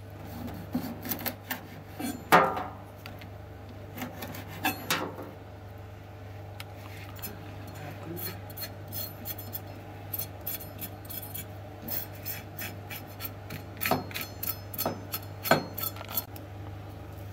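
Kitchen knife cutting and scraping through hard dried herring (migaki nishin) on a cutting board: irregular scrapes, crackles and knocks of the blade on fish and board, the loudest about two seconds in and a cluster near the end. A steady low hum runs underneath.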